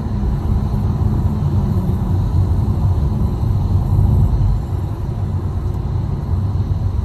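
A loud, steady low rumble with no clear rhythm.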